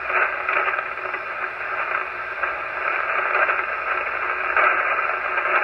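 Hiss and static from a Kenwood TS-430S HF transceiver's speaker, receiving in lower sideband on 3.863 MHz in the 75-metre band: steady band noise with no station coming through.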